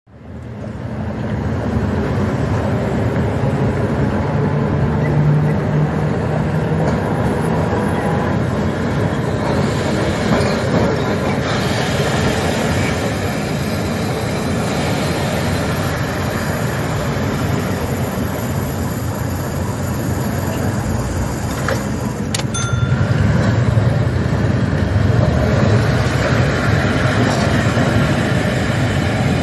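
Vintage Milan Class 1500 'Ventotto' trams running past on street rails: a steady rumble of steel wheels on track with a low hum, swelling louder in the last several seconds as a tram passes close.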